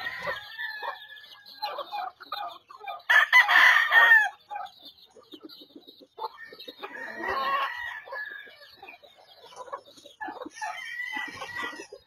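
Gamefowl roosters crowing several times, the loudest crow about three seconds in, with clucking between the crows.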